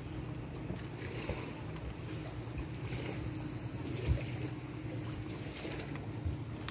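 Wind rumbling steadily on the microphone, with a single soft knock about four seconds in.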